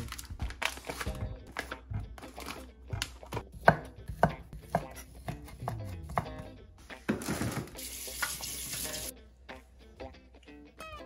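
A chef's knife chopping sausage into rounds on an end-grain wooden cutting board: a quick run of sharp knife-on-board knocks. Then comes a couple of seconds of rustling before it goes quieter.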